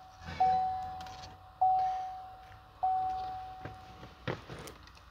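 Dashboard warning chime of a 2017 Chevrolet Silverado 2500 with the ignition on and the engine off: a single-tone bong struck three times about a second apart, each one ringing down. A thump follows shortly after the chimes stop.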